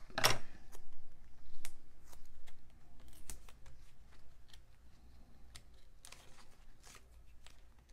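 Scattered light clicks, taps and paper rustles from hands handling cardstock pieces and foam adhesive while assembling a card, with one louder knock just after the start.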